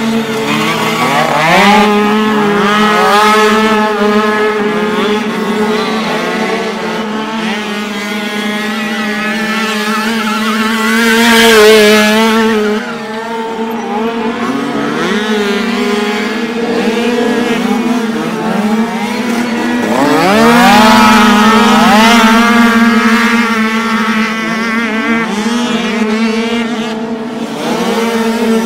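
Several small 49cc two-stroke dirt bike engines revving hard, their pitch rising and falling as riders accelerate out of turns. The bikes are loudest about eleven seconds in and again around twenty seconds.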